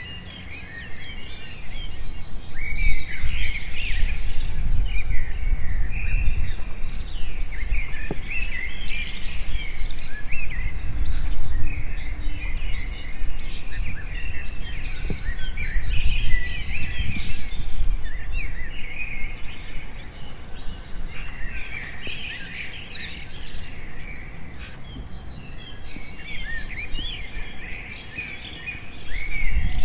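Many small birds chirping and twittering in dense, overlapping calls, over a low rumble that is heaviest through the first two-thirds.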